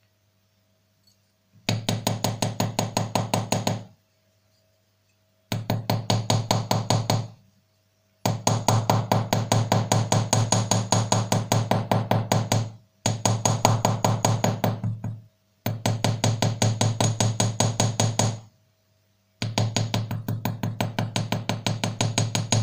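Very small watchmaker's hammer tapping a silver ring on a mini anvil in quick, light taps, about nine a second, with a ringing tone under them. The taps come in six runs separated by short pauses, as the ring's crushed, sharp edges are worked even.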